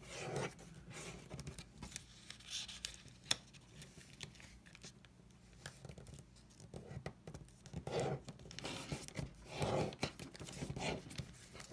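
A square of origami paper rustling and crinkling under fingers as it is folded and creased, with irregular scrapes and an occasional sharp crackle. The rustling grows louder near the end as a flap is lifted and folded over.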